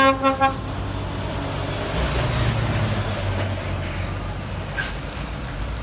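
Three short blasts of a truck horn, then a heavy truck's diesel engine running as it drives close past, its rumble swelling about two seconds in.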